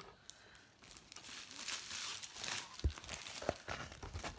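Diamond painting canvases and their clear plastic cover film crinkling and rustling as they are handled and laid on top of one another, with a soft thump about three seconds in.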